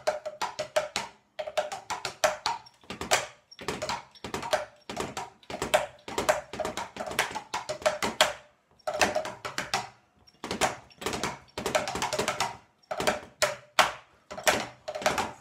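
Drumsticks striking the pads of a practice drum kit, played around the kit in bursts of rapid strokes, fills and rolls, with short gaps between them.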